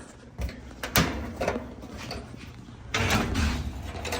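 Clicks and knocks of hand tools and a metal washer cabinet being handled during a lid switch repair, with a sharp knock about a second in and a busier stretch of scraping and rumbling near the end.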